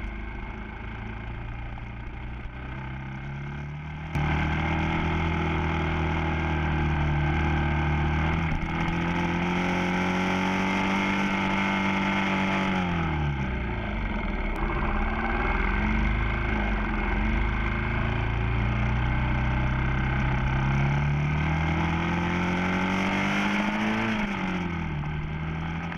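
Motorcycle engine on the move: low and steady at first, then, after a sudden step up in loudness about four seconds in, its pitch climbs as it accelerates, drops sharply around halfway as it slows, climbs again and falls back near the end.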